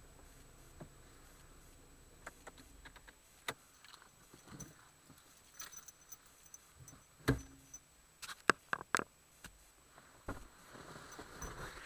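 Irregular taps and clicks close to the dashcam's microphone inside a stationary car, over a faint steady hiss, with a cluster of louder knocks a little past the middle.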